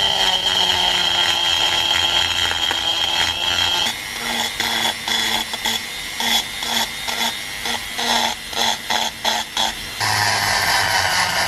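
Handheld rotary tool with a fluted cutting burr grinding the steel of a sledgehammer head. The motor runs with a steady high whine, then cuts in short repeated passes about two a second, then runs steadily again near the end.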